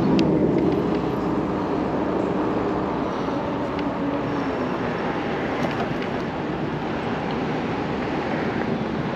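Steady riding noise from an e-bike under way: wind rushing over the microphone mixed with tyre and road noise, with no sharp events.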